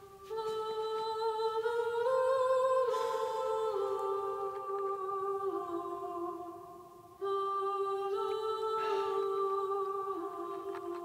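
Background music: a wordless vocal melody of long held notes that step from one pitch to the next, with a short break about seven seconds in.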